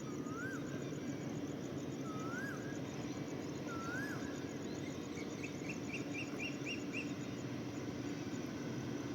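Birds calling at dawn: three separate rising-and-falling whistled calls, then a quick run of about seven short higher notes, over a fast, high repeated chirping and a steady low hum.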